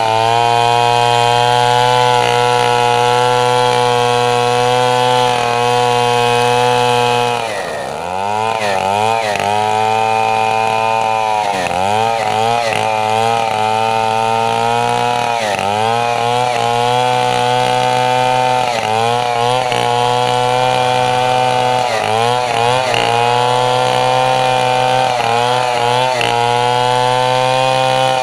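Stihl MS 070 two-stroke chainsaw running at high revs, ripping lengthwise along a mahogany log. About seven seconds in the engine pitch drops sharply and then keeps dipping and recovering every second or two as the saw works through the cut.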